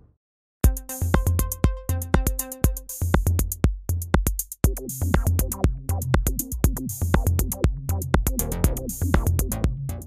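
Electronic music with a drum-machine beat, starting about half a second in after a moment of silence.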